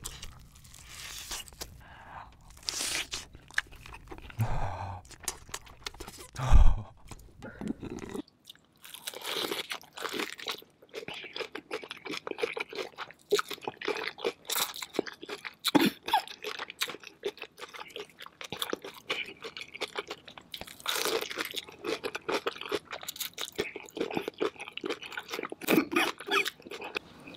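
Close-miked eating of spicy chicken: crunching bites and wet chewing, with one loud low knock about six seconds in.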